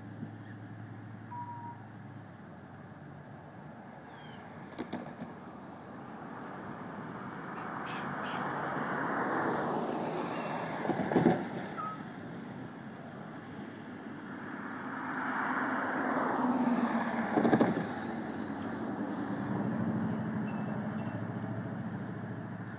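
Two motor vehicles passing one after the other, each swelling up and fading away over several seconds. A few short bird chirps sound in between.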